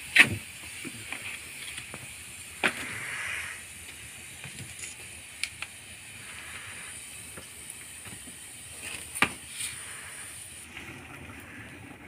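Wood fire burning under bamboo tubes of rice and chicken cooking in the flames: a steady high hiss with scattered crackles. A few sharp knocks as the tubes are handled and turned, the loudest right at the start, others about two and a half and nine seconds in. The high hiss drops away shortly before the end.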